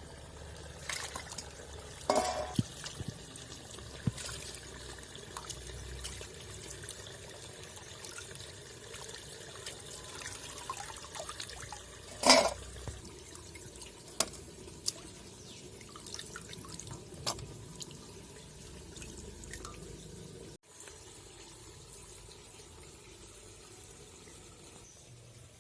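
Water sloshing and dripping as cut small hilsa fish are washed by hand in a pot, with scattered short splashes and clinks, the loudest about twelve seconds in. About twenty seconds in the splashing stops abruptly and only a faint steady background remains.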